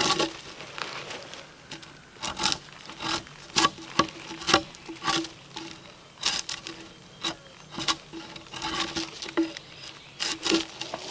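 Bark being scraped off a freshly felled log with a hand tool: a run of short scraping strokes, one every half second to a second, uneven in strength.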